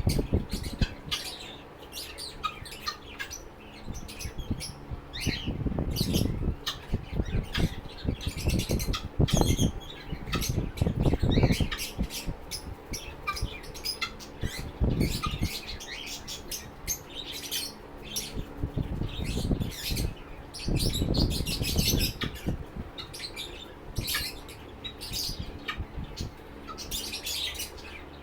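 Lovebirds chirping continuously in quick, high-pitched, overlapping calls, with repeated bursts of low rustling or bumping.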